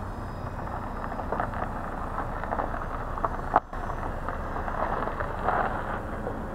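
Wind buffeting the microphone of a camera lying in the grass, coming in uneven gusts, with one sharp knock about three and a half seconds in.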